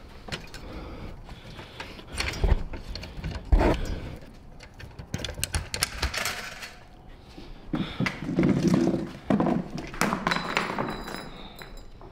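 Handling noise from a handheld camera being carried and jostled, with irregular knocks, thumps and rustling; the sharpest thump comes about three and a half seconds in.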